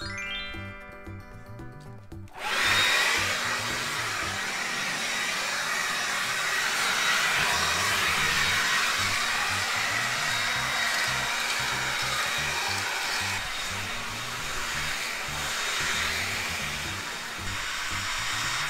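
A brief rising tone, then from about two seconds in a Ryobi cordless leaf blower running steadily: a loud rush of air with a thin high fan whine.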